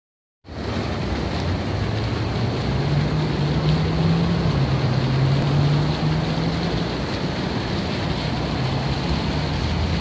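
Fountain jets splashing into a tiled pool, a steady rushing hiss, with a low droning hum that drifts up and down in pitch underneath.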